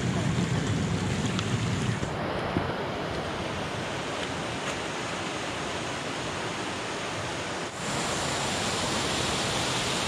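Steady rushing of a small mountain stream's water. Just under eight seconds in it switches abruptly to the louder, hissier rush of a small waterfall cascading into a pool.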